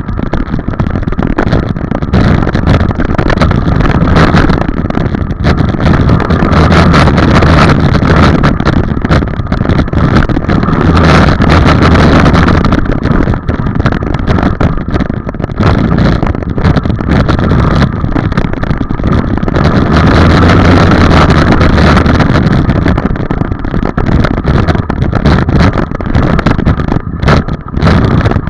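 Dirt bike engine running very loud and close, the throttle opening and closing as the bike is ridden around a dirt track, with brief drops in engine sound near the end.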